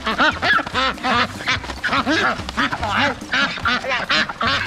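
Several domestic ducks quacking, with many short quacks at different pitches overlapping in quick succession.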